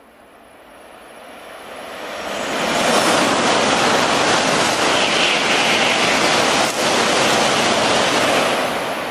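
Shinkansen bullet train passing through a station at high speed without stopping: a rushing noise of air and wheels that builds over the first three seconds, stays loud with a brief break about two-thirds of the way through, and begins to fade near the end.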